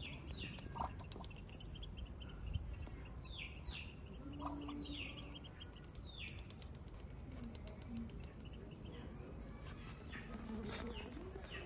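Muscovy duckling peeping: several short, high peeps, each falling in pitch, scattered mostly through the first half.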